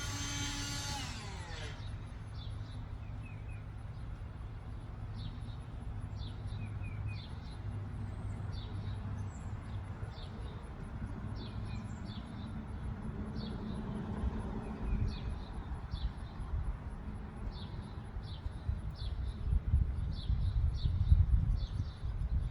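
Whelen WPS-2809 electronic outdoor warning siren finishing its test: its steady tone slides down in pitch and cuts off about a second in. Then birds chirp repeatedly over a low outdoor rumble that grows louder near the end.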